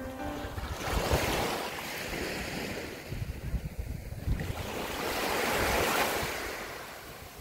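Small surf breaking and washing up on a sandy beach, with wind buffeting the microphone. The wash swells loudest about five to six seconds in as a wave runs up the sand.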